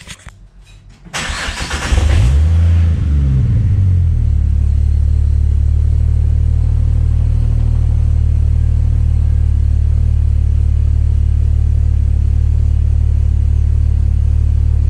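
Ford FG X Falcon XR6 Turbo's turbocharged inline-six started cold through a new 4-inch dump pipe and 3.5-inch cat-back exhaust, middle muffler still fitted. The starter cranks about a second in. The engine catches and flares up in revs, then settles into a steady, deep idle from about four seconds in.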